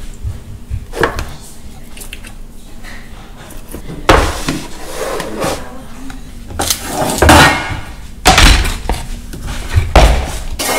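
Kitchen things being handled and set down on a wooden worktop: scattered knocks and clatters, the first about four seconds in and several more near the end.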